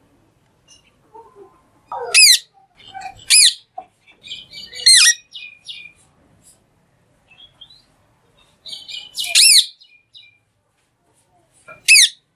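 Green parrot giving five loud, shrill calls spaced a few seconds apart, with softer chattering between them.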